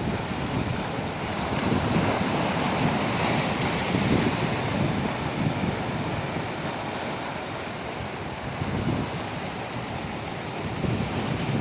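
Ocean waves washing ashore, swelling and easing, with wind buffeting the microphone.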